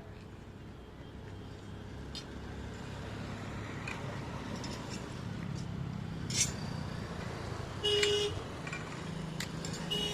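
A motor vehicle's engine rumble growing louder as it nears, with a short horn toot about eight seconds in and a few sharp clicks.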